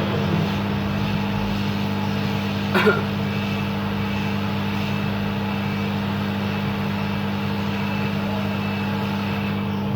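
Heat gun blowing steadily, an even rush of air over a motor hum, while it heats a phone's circuit board to melt the solder holding the charging jack. A short click about three seconds in.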